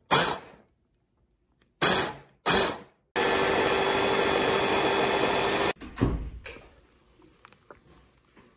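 Small electric food processor blending cooked chickpeas into hummus: three short pulses, then a steady run of about two and a half seconds with an even motor hum that cuts off suddenly. A low knock follows just after it stops.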